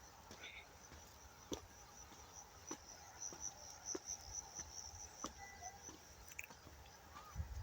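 Faint, steady, high-pitched insect trill, pulsing finely and strongest around the middle, with a few scattered soft clicks.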